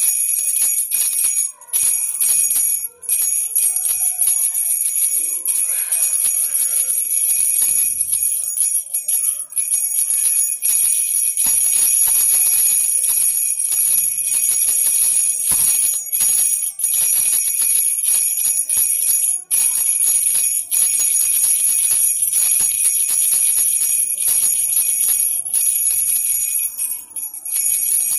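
Baby rattle with small bells being shaken continuously, jingling and clicking with a couple of brief pauses in the first few seconds.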